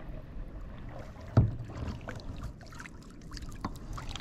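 Handling noise in a kayak: one loud, dull thump about a second and a half in, then scattered light clicks and taps.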